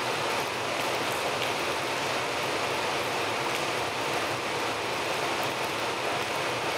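City bus with its diesel engine running as it creeps across a wet terminal forecourt, heard as a steady, even hiss and rumble.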